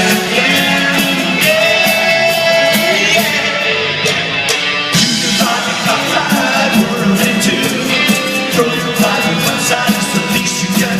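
Live rock band playing a song, with singing over guitar and a steady drum beat.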